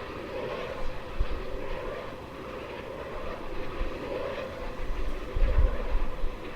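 Wind turbines running in strong wind: a steady roaring rumble like a distant jet engine. Wind buffets the microphone in low thumping gusts about a second in and again near the end.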